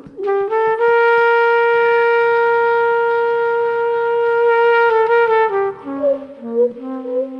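Jazz brass horns playing: one horn holds a long steady note for about four seconds, then breaks into a run of short notes, and a lower horn comes in under it near the end.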